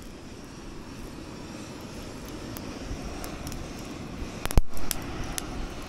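Handheld butane torch running with a steady roar, its flame blasting into charcoal in a grill to light it. A few sharp cracks about four and a half seconds in.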